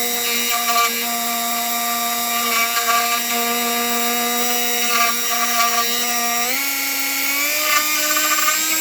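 Dremel rotary tool spinning as the spindle of a small CNC mill, a steady whine that steps up in pitch twice in the last few seconds as its speed is turned up.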